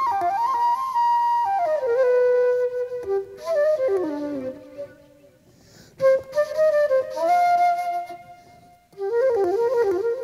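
Jazz flute playing a solo melody line in phrases, with note bends and quick ornaments, breaking off briefly about five seconds in and again just before the end.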